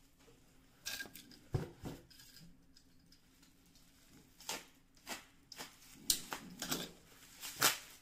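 Clear plastic packaging being handled and pulled open by hand: a series of irregular crinkles and rustles.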